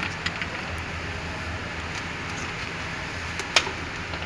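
A low steady hum with a few light clicks and taps, the sharpest about three and a half seconds in.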